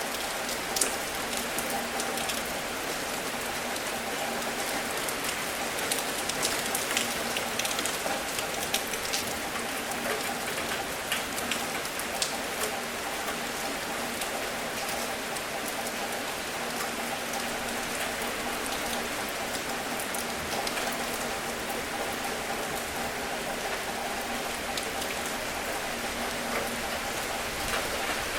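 Steady rain falling on a surface, with many individual drops ticking sharply against a constant hiss and a faint steady hum underneath.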